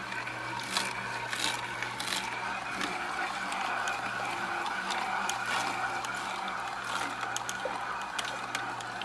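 Masticating (slow) juicer running steadily with a low hum as its auger crushes celery stalks, with scattered sharp crackles from the celery.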